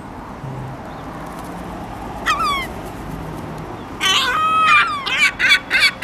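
Gulls calling: a single falling cry about two seconds in, then near the end a long drawn cry running straight into a quick series of loud repeated cries, about four a second.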